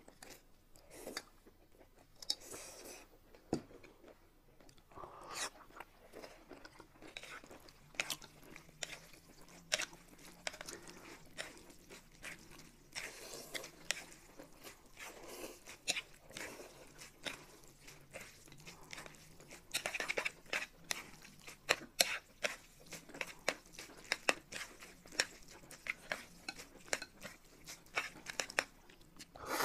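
Close-miked eating sounds: noodles being slurped and chewed, with many small sharp clicks of chopsticks against plates and bowls. Longer slurps come about halfway through and again around two-thirds of the way in.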